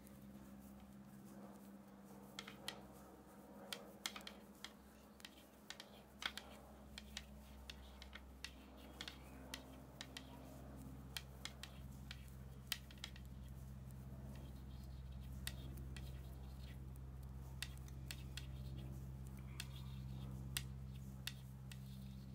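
Wooden knitting needles clicking lightly against each other as stitches are purled, in irregular small clicks about one or two a second, over a low steady hum.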